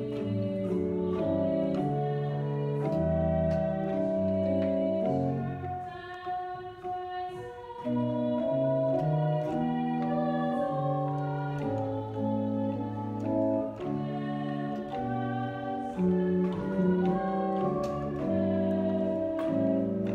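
Church pipe organ playing slowly in sustained chords over a moving bass line, with a brief lull between phrases about six seconds in.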